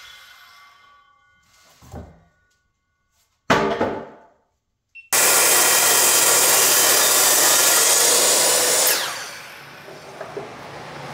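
Handheld power saw cutting a walnut slab's edge: the motor whirs steadily at full speed and winds down with falling pitch when released. A short burst about three and a half seconds in dies away quickly, then a steady run starts abruptly about five seconds in and winds down about nine seconds in.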